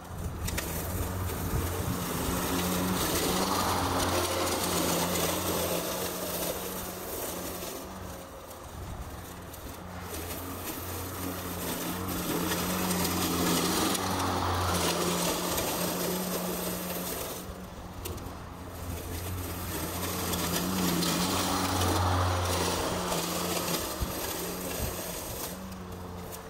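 Mowrator S1 battery-electric remote-controlled lawn mower cutting long grass: a steady low motor hum with a rushing cutting noise that swells and eases three times as it works through the thick growth.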